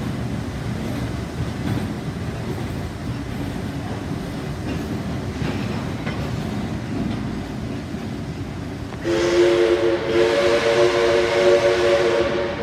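Heritage passenger carriages rolling slowly out of the platform with a steady low rumble. About nine seconds in, the steam locomotive's chime whistle sounds a loud, steady chord for about three seconds.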